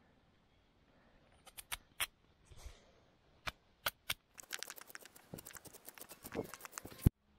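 Small knife chopping peeled raw potatoes: sharp clicks of the blade cutting through, a few scattered at first, then a quick run of cuts over the last few seconds, ending with one louder knock.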